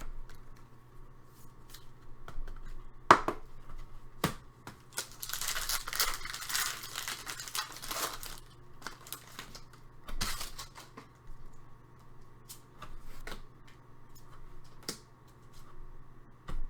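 Trading-card packs being torn open and the cards handled. A crinkling, tearing stretch falls in the middle, with scattered clicks and taps of cards and wrappers around it.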